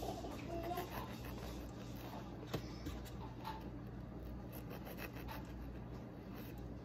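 Kitchen knife sawing through soft bread rolls: faint, soft scraping with a few light taps.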